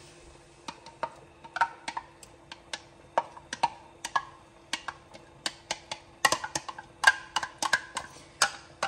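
Irregular sharp taps and clicks, about two or three a second and coming thicker near the end, as a spatula scrapes and knocks thick ketchup out of a glass measuring cup over an enameled cast-iron Dutch oven.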